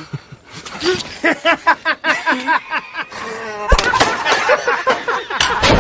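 Several people's voices talking and exclaiming over one another, with a sharp knock about three and a half seconds in.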